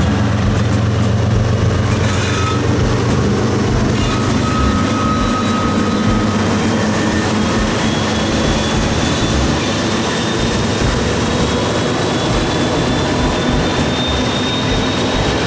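Freight train rolling past close by: the steady rumble of rail cars and a diesel locomotive's drone, with a thin high whine that rises slightly in the second half.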